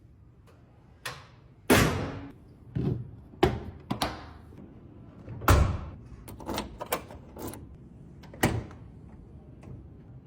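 A series of irregular sharp bangs and thuds, about a dozen over ten seconds, each dying away quickly; the loudest come about two, three and a half, and five and a half seconds in.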